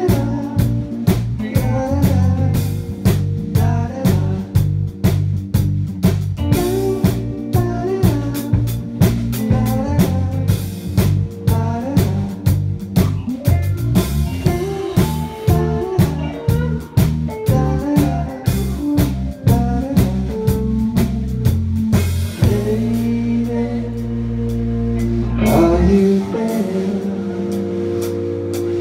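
A small rock band playing live: electric guitar and drum kit with a man singing, on a steady beat. The drums drop out about 22 seconds in, leaving sustained chords.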